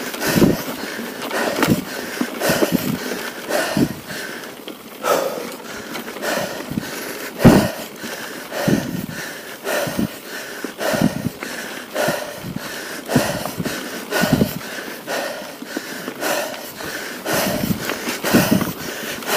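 A mountain biker's heavy breathing on a climb, about one hard breath a second close to the microphone, over the hiss and rattle of the bike on a rocky dirt track.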